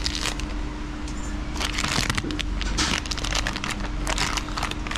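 Irregular clicks, rattles and rustles of bike parts and tools being handled during repair work, over a steady low hum.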